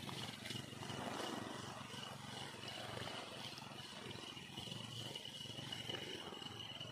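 Fugu Eiji 2000 spinning reel being cranked steadily to retrieve a sinking minnow lure after the cast: a low, continuous whir with a thin high whine held throughout.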